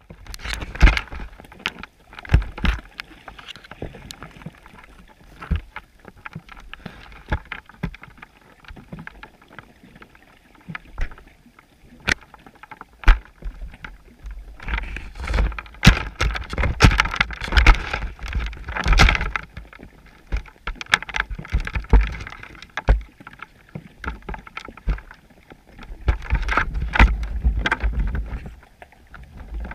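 Muffled underwater knocks and clicks against a GoPro's waterproof housing on a chum pot, with stretches of denser water-moving noise in the middle and again near the end.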